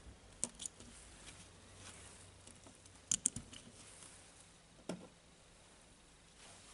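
Faint light clicks and taps of small metal gear parts being handled in a cordless drill's planetary gearbox: a couple of clicks about half a second in, a quick cluster just after three seconds, and a duller knock near five seconds.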